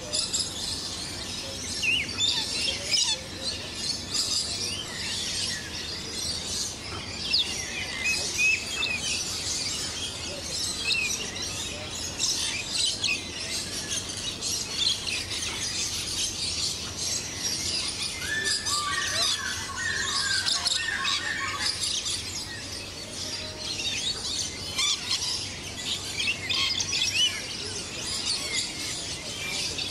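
Birds chirping and calling in a dense, continuous chorus of short high chirps, with a run of lower calls about two-thirds of the way through.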